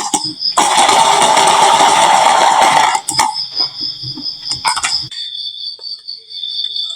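Marbles rolling down a wooden marble-run slope: a loud rolling rush lasting about two seconds, then scattered sharp clicks as marbles strike and drop. A steady pulsing high tone runs under most of it.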